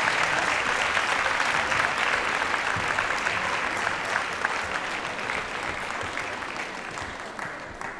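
Audience applauding, a dense patter of clapping that gradually dies away.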